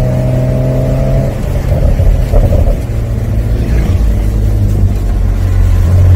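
Porsche 911 (992) Carrera 4S's twin-turbo flat-six and exhaust running steadily under light throttle, heard from the cabin with the roof down. Its pitch steps lower a couple of times, and it grows louder near the end.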